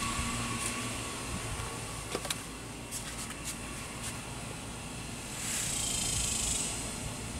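Cicadas buzzing, a high hiss-like drone that swells louder for about a second starting some five seconds in, over a low steady rumble. A few faint sharp clicks come about two to three and a half seconds in.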